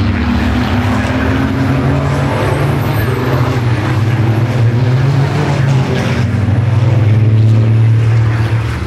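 Several race trucks' diesel engines running hard as the pack powers through a bend. The drone is loud and steady and grows louder about three quarters of the way through as a truck passes close.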